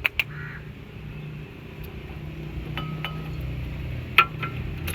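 Metal brake parts clinking as the caliper and old brake pads are handled: two sharp clinks at the start and two more near the end, some of them ringing briefly, over a steady low hum.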